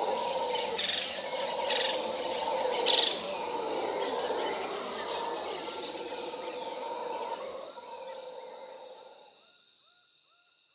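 A steady chorus of chirring insects, fading away over the last few seconds, with a short chirp repeating about three times a second near the end.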